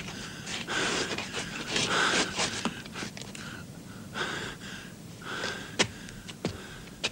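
A man breathing hard in a string of heavy, gasping breaths while climbing, with a few sharp knocks near the end.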